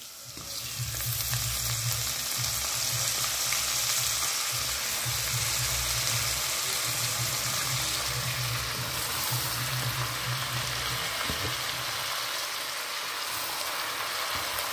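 Hot oil sizzling in a stainless steel pot as freshly washed amaranth leaves (cane herbs) are dropped onto frying onions, chillies and garlic. The sizzle swells about half a second in and then holds steady.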